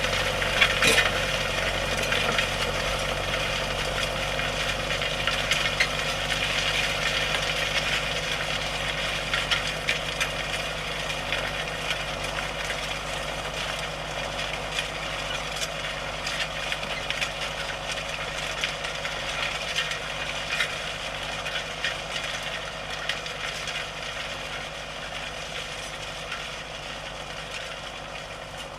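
Farm tractor engine running steadily under load while plowing, with a dense metallic clatter and rattle over the engine hum; the sound gradually grows fainter.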